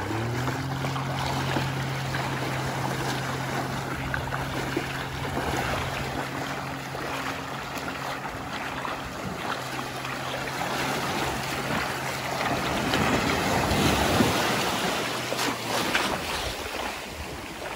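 Wind buffeting the microphone and water splashing around wading legs in shallow sea, loudest about 14 seconds in. Under it a steady low engine hum runs until about 13 seconds in and then fades out.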